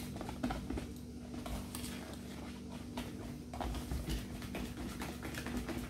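Whisk beating a thin flour-and-milk batter in a plastic bowl: rapid, irregular clicking and tapping of the whisk against the bowl, over a low steady hum.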